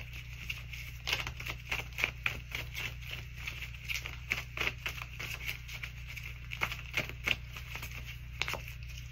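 A deck of tarot cards shuffled by hand: a steady run of quick, irregular soft clicks and slaps as the cards slide against each other.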